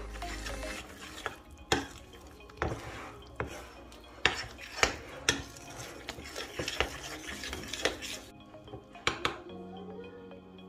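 Metal cutlery stirring flour and dough in a bowl, clinking and scraping against the bowl's side in sharp, irregular strokes.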